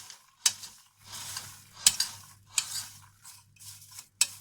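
Popped popcorn being stirred with a spoon: irregular rustling scrapes with a few sharp clicks of the spoon against the container.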